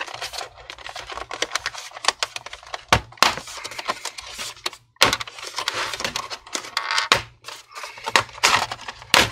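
Snap-in plastic clips of an Acer Aspire C24-865 all-in-one's rear cover clicking and cracking loose as the cover is pried off by hand, with plastic scraping between several louder snaps. A lot of clicking is normal here, because the cover is held on by clips all round.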